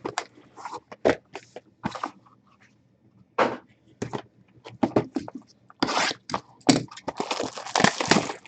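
Trading card packaging and cards being handled at a table: a run of short scrapes and crinkles, then a denser, longer crinkling stretch of about a second near the end.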